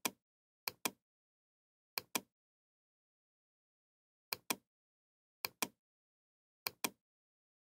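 Computer mouse button clicks, in pairs of a press and release a fraction of a second apart, about six pairs spread unevenly over several seconds, with silence between.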